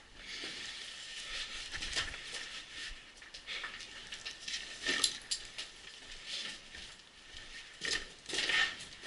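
Clothing and a backpack rustling and scraping against rock and rubble as someone crawls through a narrow hole in a rock wall, with a few sharp knocks and clatters, the loudest about five seconds in and near the end.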